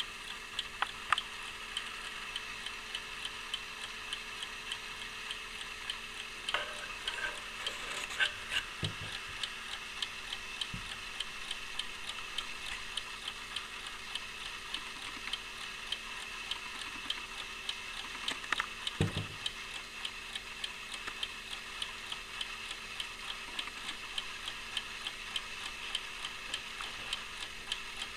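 Antique officer's carriage alarm clock movement running: its balance-wheel escapement ticking rapidly and evenly. A few soft knocks come through partway in and again about two-thirds of the way through.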